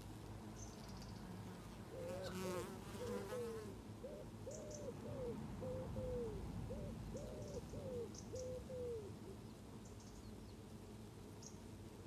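Honeybees buzzing at the hive entrance, with one bee flying close past about two seconds in. Over it, a bird gives a run of about a dozen short, low cooing notes from about two to nine seconds in, and distant songbirds chirp faintly.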